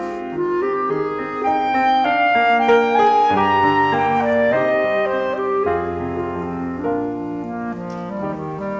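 Clarinet playing a melody with grand piano accompaniment, the clarinet moving from note to note over sustained piano chords.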